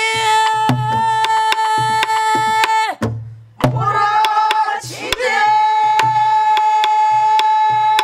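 Several voices singing a Korean folk song together, holding two long notes with a short break about three seconds in. Under them, Korean buk barrel drums beat the dongsalpuri rhythm with deep thumps and sharp stick clicks.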